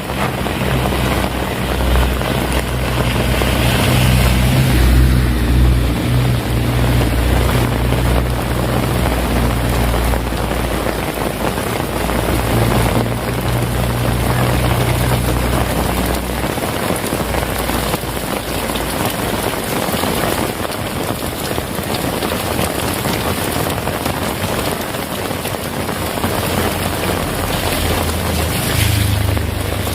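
Heavy rain falling steadily on surfaces. A low rumble runs underneath through roughly the first half, fades out, and comes back briefly near the end.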